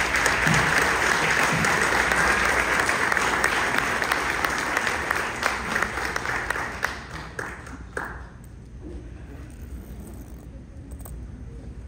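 An audience applauding, the clapping dying away about eight seconds in.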